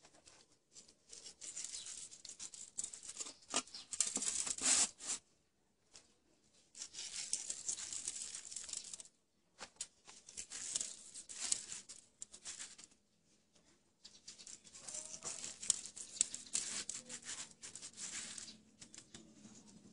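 Hand rubbing salt into a slab of honeycomb with bee larvae on an aluminium tray: gritty scratching and pattering in several stretches of a few seconds each, with short pauses between.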